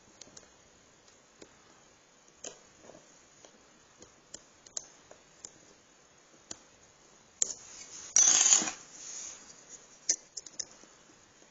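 Lock pick and tension wrench working the pins inside a Chubb padlock's keyway: scattered small metallic clicks and ticks, with a louder half-second rush of scraping noise about eight seconds in.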